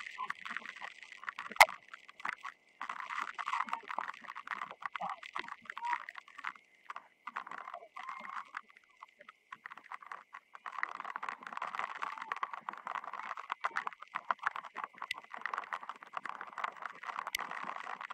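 Field hockey match ambience: a steady crackle of small clicks and noise, thinning out for a couple of seconds in the middle. A single sharp crack stands out about one and a half seconds in, with a smaller one near the end.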